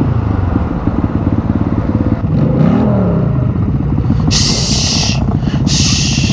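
Motorcycle engines idling, with one engine revving briefly near the middle. Two short bursts of hiss come about a second apart near the end.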